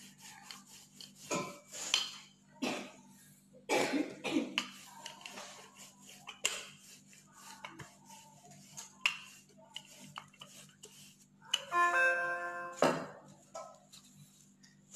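Wooden rolling pin rolling out bread dough on a floured worktop: irregular light knocks and clicks. A short held musical tone sounds about twelve seconds in, with faint voices in the background.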